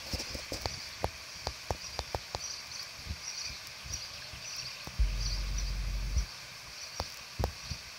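Outdoor ambience by a small river: a steady hiss of flowing water with scattered small clicks, and a burst of low wind rumble on the microphone about five seconds in.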